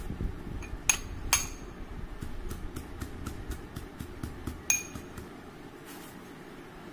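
Neem leaves being crushed by hand-pounding in a vessel: a run of knocks, with three sharp ringing clinks about a second in, just after, and near five seconds, fading to softer taps near the end.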